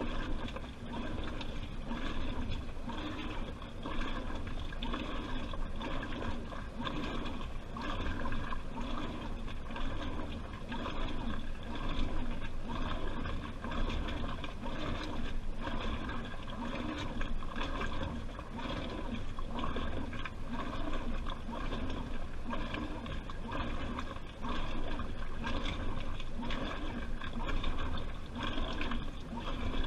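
Washing machine drum tumbling a wet load, with water sloshing and gurgling inside the drum in a regular rhythm of about one slosh a second, heard from inside the drum.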